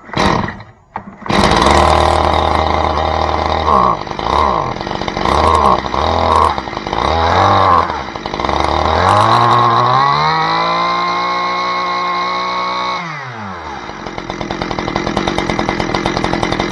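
Stihl MS 181 C chainsaw's two-stroke engine catching on a starter pull about a second in, then blipped up and down several times, revved to a high steady pitch for a few seconds, and dropped back to idle.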